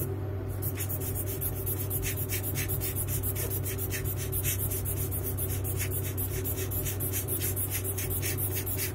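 A brush scrubbing quickly back and forth over a dusty CCTV bullet camera circuit board, a dry scratching rasp of about four strokes a second, over a steady low hum.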